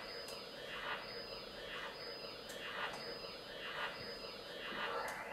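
The vOICe image-to-sound software sonifying a photo of a forested mountain valley. It scans the image left to right about once a second, each scan a dense cluster of pitches, high for high parts of the image and louder for brighter parts. Near the end the pattern changes to broad sweeps rising and falling in pitch.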